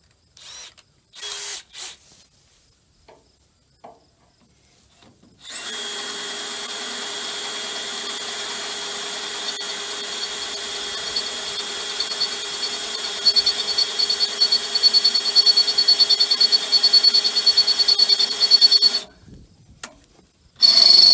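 Electric drill boring into steel with a steady motor whine for about thirteen seconds, turning into an uneven chatter partway through as the bit bites. The drill stops, pauses briefly and starts again near the end. The bit is running at a speed he calls too fast.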